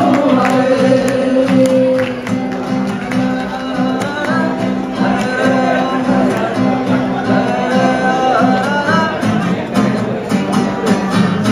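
A Bangla modern song performed live on acoustic guitar, with a voice singing over the strummed chords.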